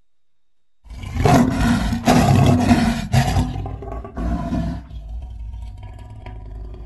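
Lion roar sound effect, presented as the roar of the extinct Mosbach lion. A loud roar starts about a second in and breaks off several times. A shorter burst follows, then a quieter, lower tail that trails off.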